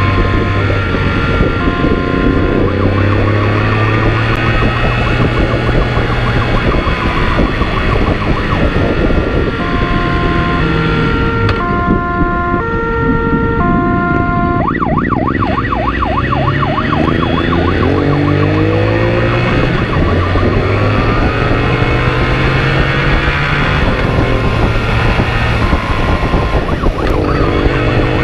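Motorcycle engine running hard at speed, its pitch rising and stepping with gear changes, over constant wind rush. A police siren wails through it, switching midway to alternating two-tone notes and then a rapid yelp.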